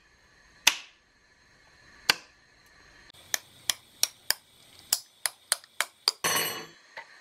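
A table knife tapping the metal twist-off lid of a glass jar about eleven times, slowly at first and then about three taps a second. This is done to break the vacuum seal on a stuck lid. A short noisy burst follows near the end.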